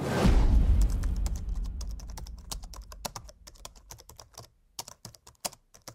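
Keyboard-typing sound effect: rapid, irregular clicks that follow the text being typed onto the screen. A loud low rumble at the start fades away over about two seconds.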